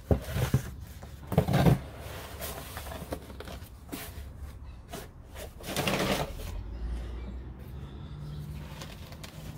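Cardboard box and packing being handled: flaps pulled open and cardboard shifted, with a few short knocks and rustles, the loudest about a second and a half in and a longer rustle near the middle. A faint steady low hum comes in near the end.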